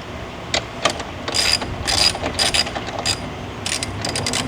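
Plastic clicks and rattles as a wiring terminal housing and its clips are pressed shut over the newly routed wire: a string of sharp clicks, some doubled, about every half second.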